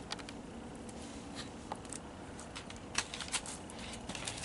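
Soft, scattered clicks and rustles of hands working dry potting soil and a black plastic nursery pot, as the pot is lifted off the root ball.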